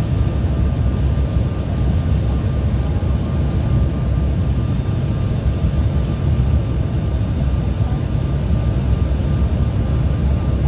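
Airliner cabin noise on approach: a steady roar of engines and airflow, heaviest in the low rumble, with a faint steady whine on top.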